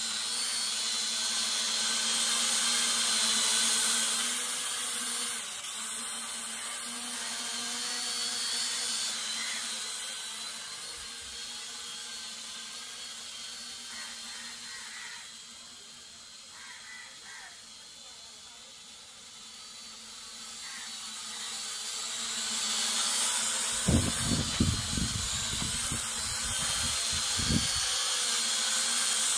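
Small quadcopter drone's propellers and motors whining steadily overhead, growing fainter in the middle and louder again as it moves. A few low thumps come near the end.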